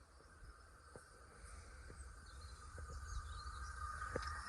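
Class 375 electric train approaching, heard as a faint hum that grows steadily louder, with faint birdsong.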